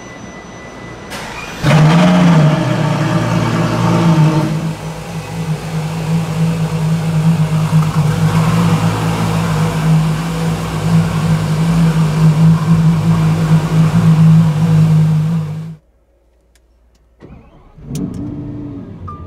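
Ferrari LaFerrari V12 engine starting with a sudden loud flare about two seconds in, then settling into a steady idle as the car creeps forward. The sound cuts off abruptly near the end, followed by a sharp click.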